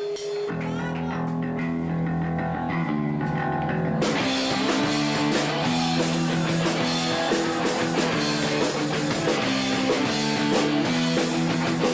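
Rock band playing: a guitar and bass riff opens, and drums and cymbals come in about four seconds in, carrying on at full band.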